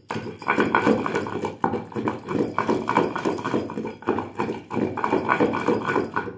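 Pestle pounding peanut chutney paste in a heavy stone mortar: a quick, steady run of dull knocks, several a second.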